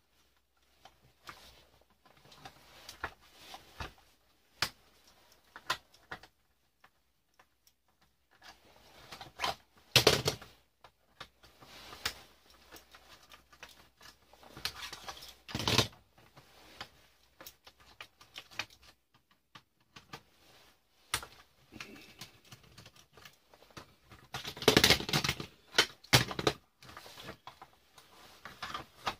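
Plastic circuit breakers on a fuse box rail being worked loose with a screwdriver: irregular clicks and ticks of plastic and metal, with a few louder bursts of clattering knocks.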